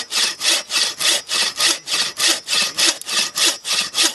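Hand saw cutting through wood in quick, even strokes, about three a second.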